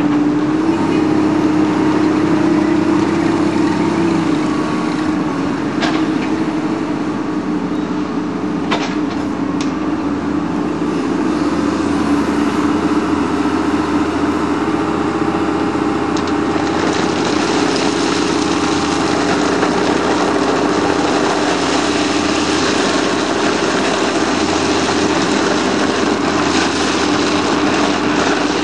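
Wheeled excavator's diesel engine running steadily under hydraulic load, its pitch shifting slightly as the arm moves, with a couple of sharp knocks about six and nine seconds in.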